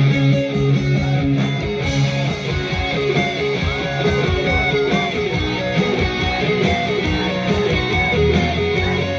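Rock band playing live: an electric guitar lead line with bending notes over bass guitar and drums.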